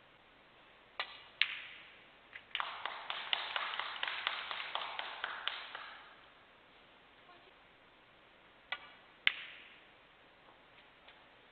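Snooker balls clicking: a cue strike and the cue ball knocking into an object ball about a second in, then a few seconds of audience applause that fades out, then another sharp pair of ball clicks near the end.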